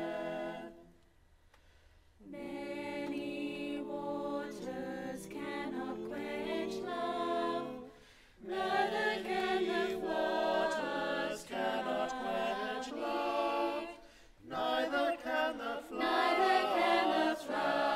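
Mixed choir of men and women singing sustained chords in phrases, with a short pause about a second in and brief breaks near 8 and 14 seconds.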